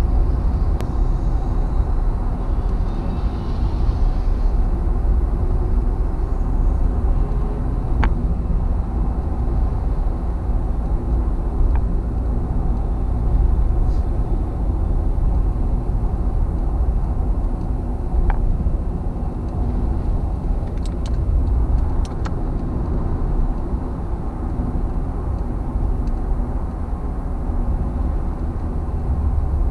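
Car cabin noise at highway speed: a steady low rumble of tyres, road and engine, with a few faint brief clicks and ticks.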